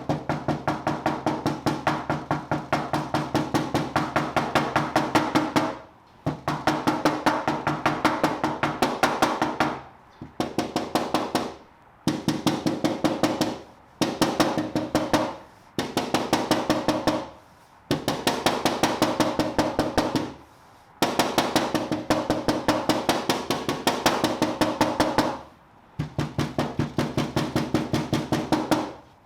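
Body hammer tapping a dent out of a 2015 Kia Optima's sheet-metal front fender: quick strikes, about four a second, in runs of a few seconds broken by short pauses, the panel ringing with each blow.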